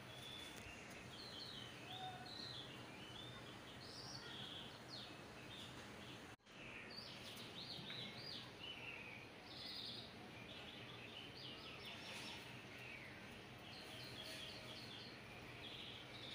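Faint bird chirps and short calls, many in quick succession, over a steady background hiss. The sound drops out briefly a little past six seconds in.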